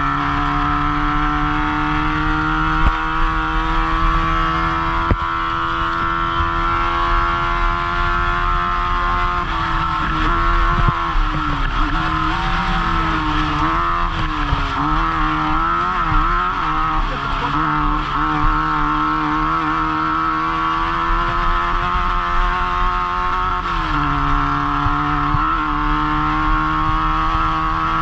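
Off-road race vehicle's engine heard from on board, running hard at fairly steady revs. The pitch wavers up and down for several seconds in the middle as the throttle comes on and off, then holds steady again.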